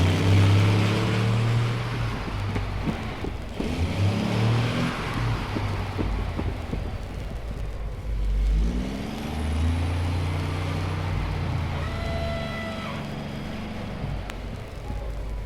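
Car engine revving and accelerating, its pitch rising in two runs, one at the start and one about nine seconds in, over a steady low engine hum.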